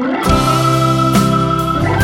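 Background music: sustained organ-like keyboard chords. A fuller arrangement with regular beat hits comes in just after the start.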